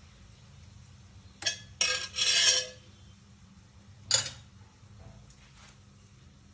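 Metal spoon knocking and scraping against cookware as cooked turnip is transferred into the pot with the chicken: a click about a second and a half in, a short scraping rattle just after two seconds, and a sharp clink about four seconds in.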